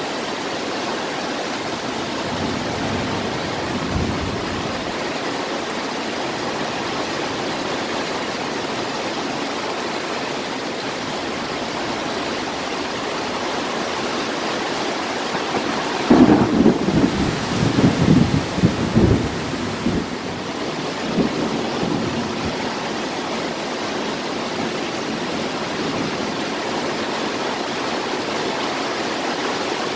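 Heavy thunderstorm rain falling steadily, with a rumble of thunder lasting a few seconds about halfway through.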